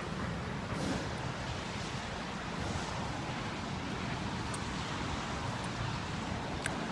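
Steady outdoor background noise: wind buffeting the microphone over a low traffic hiss, with a couple of faint clicks.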